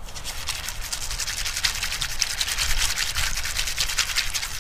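Wet piñon nuts shifting and scraping against a metal pan as the pan is handled, a dense, rapid crackle of small clicks.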